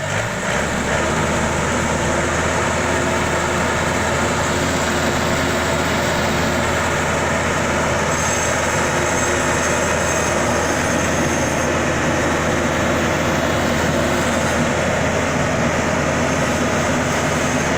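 Yanmar AW82 combine harvester's diesel engine steps up in speed about half a second in, then runs steadily at high revs.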